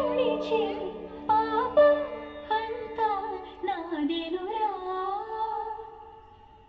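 Indian classical-style song playing for a dance: a high voice sings long, gliding melodic lines over accompaniment, and the music fades away near the end.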